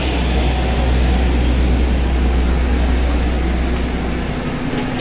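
Steady jet airliner noise on the apron: a high whine over a low rumble, with no breaks.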